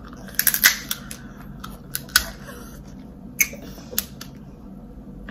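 Boiled crab being bitten and broken close to the microphone: scattered sharp cracks and clicks of shell, the loudest about half a second in.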